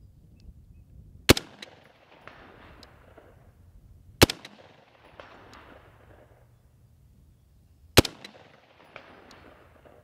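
Three single shots from a Heckler & Koch G36 5.56×45 mm rifle, roughly three seconds apart, each followed by an echo that fades over a second or so.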